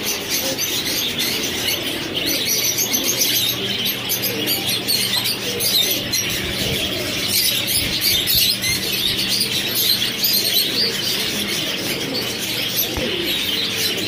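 Many caged birds chirping and chattering all at once, budgerigars among them, over a steady low hum.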